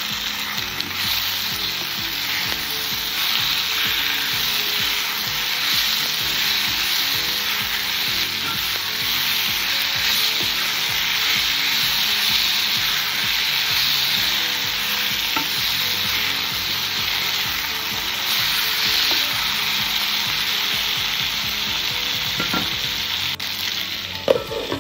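Vegetables sizzling as they fry in hot oil in a wok, with a wooden spoon stirring them through the onions and spices. Near the end a glass lid clinks down onto the pan.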